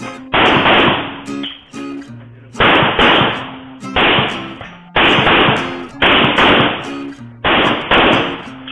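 Handgun shots from a practical-shooting stage, about nine, some fired singly and several in quick pairs, each ringing out and fading. Background music plays under them.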